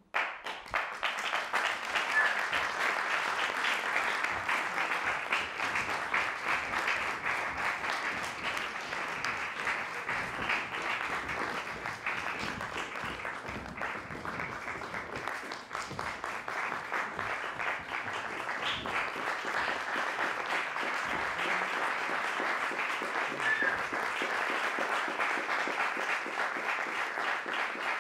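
Theatre audience applauding, breaking out suddenly as the singing stops and continuing steadily.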